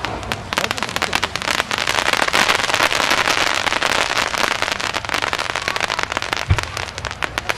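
Fireworks crackling: a dense run of many small sharp pops, with one deeper boom about six and a half seconds in.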